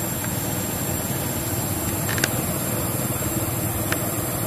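Steady rushing outdoor background noise, with a few brief high squeaks about two seconds in and again near the end.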